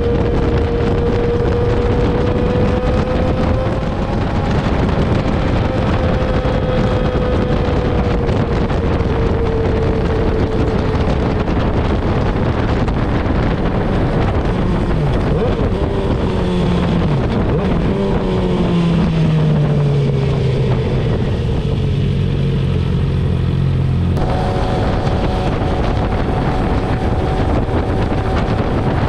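Sportbike engines running at road speed, with wind rushing over the helmet or bike-mounted microphone. Around two-thirds through, the engine note falls in steps as the bike slows. Near the end the sound changes abruptly to a new steady engine note.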